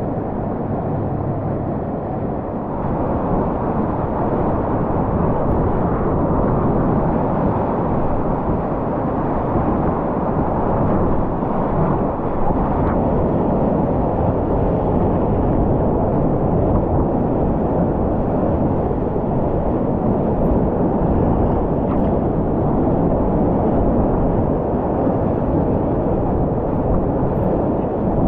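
Steady rush of river whitewater churning around a kayak surfing a play wave, heard close up from a camera on the paddler; it swells slightly about three seconds in.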